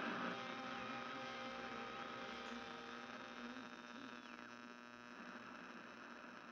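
A faint, steady buzzing hum, a stack of tones that slowly fades away.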